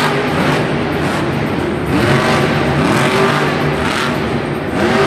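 Monster Mutt Dalmatian monster truck's supercharged V8 engine revving in repeated blips, the pitch climbing and dropping about once a second as the truck is driven across the dirt arena floor.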